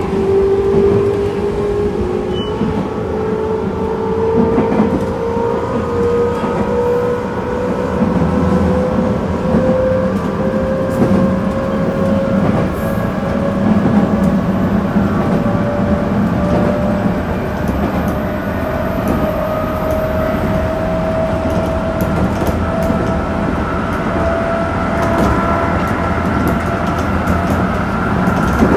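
Electric train running, its traction motors whining in one tone that climbs slowly and steadily in pitch as it gathers speed, over a constant running rumble.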